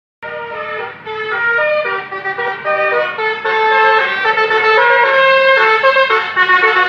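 Basuri telolet bus horn, a multi-tone air horn, playing a quick melody of short horn notes one after another. It starts a moment in.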